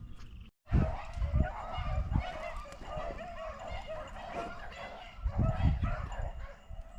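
A pack of beagles baying together while running a rabbit's scent trail, a continuous chorus of overlapping calls. Heavy low thumps come and go beneath it, the loudest about a second in and again past the five-second mark.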